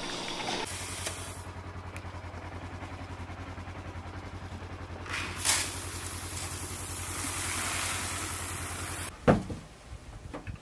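An engine idling with a steady, low, evenly pulsing hum. From about five seconds in, dry shelled corn pours from a bucket into a feeder trough with a rushing hiss that stops after about nine seconds, followed by a single sharp knock.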